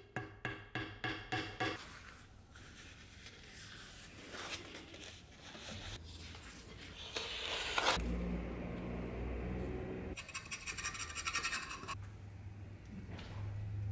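Scratching and scraping from hand work on a wooden beech axe handle: rubbing the wood, then handling and wrapping leather strips around the grip. A steady low hum comes in for about two seconds past the middle, followed by a short rapid rasp.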